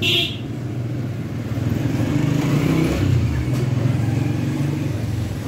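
Motor vehicle engine running, a low hum that swells about two seconds in and eases off near the end, like a vehicle passing by.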